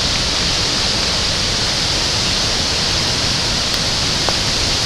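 Steady rushing noise of Victoria Falls, with its heavy spray falling like rain.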